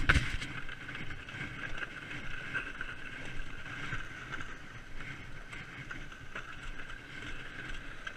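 Plastic sleds scraping as they are dragged over rough, snow-crusted ice: a steady scraping hiss that rises and falls unevenly, with small ticks throughout. A sharp click comes right at the start.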